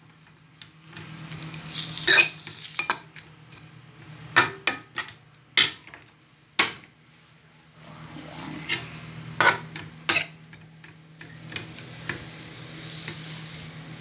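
A metal spoon scraping and clinking against a thin metal wok while sliced white onions are stirred as they sauté, in about ten sharp, irregular knocks, with a faint sizzle between them. A steady low hum runs underneath.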